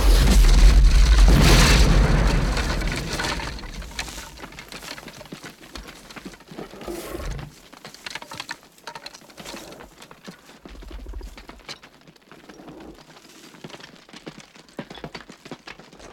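A loud fiery explosion with a deep rumble that peaks about a second and a half in and dies away over the next few seconds. Faint scattered crackles and ticks follow, with a couple of low swells.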